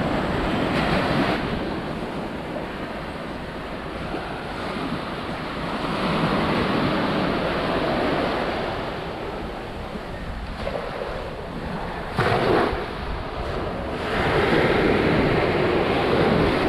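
Sea surf washing onto a beach, swelling and easing every few seconds with a brief louder surge about twelve seconds in, with wind buffeting the microphone.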